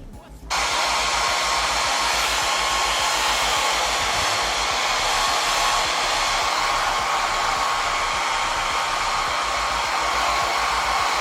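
Hair dryer blowing steadily, switched on about half a second in.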